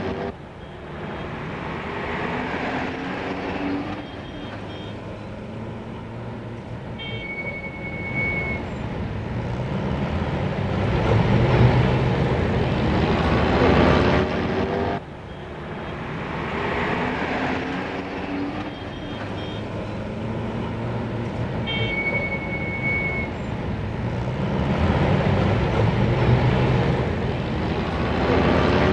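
A street tram running, its motor whine rising in pitch as it gathers speed, with a low rumble that swells to its loudest near the middle and again near the end. A short steady high tone sounds briefly before the first swell. The whole passage repeats about halfway through.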